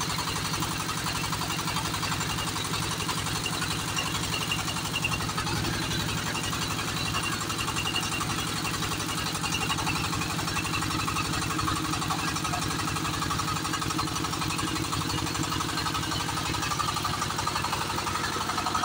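Diesel engine of a portable hydraulic water-well drilling rig running steadily, with a rapid, even knock.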